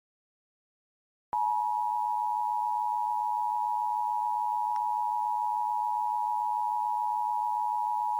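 Silence, then a little over a second in the Emergency Alert System's two-tone attention signal starts abruptly: two steady sine tones at 853 and 960 Hz sounding together without a break, marking an EAS required monthly test.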